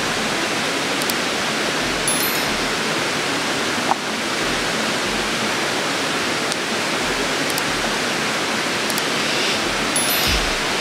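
Portable butane gas stove burner hissing steadily under a cooking pot, with a few faint small clicks of handling.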